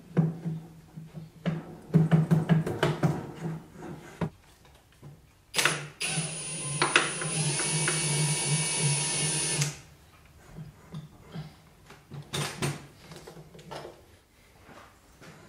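A cordless drill/driver runs steadily for about four seconds, starting about five and a half seconds in, driving in the bolts of a lathe cross slide. Before it come several sharp metal clinks and knocks as the steel parts are set in place.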